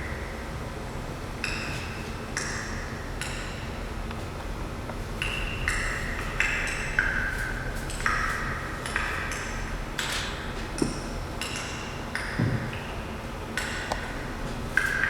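Ancient glacier ice, about 100,000 years old, popping and crackling as its trapped air escapes. Irregular sharp pings, roughly one a second, each with a brief ringing tone, over a low steady hum.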